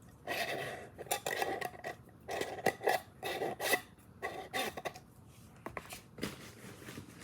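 A glass mason-jar candle clinking and knocking as it is handled, with short scrapes and rattles, busiest in the first five seconds and quieter after that.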